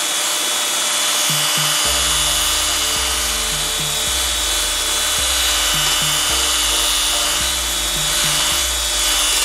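Cordless drill running steadily, spinning a steel rod wrapped with folded emery cloth inside a steel bicycle seat tube, with a constant high motor whine and the cloth rubbing against the tube wall as it scours off rust and corrosion.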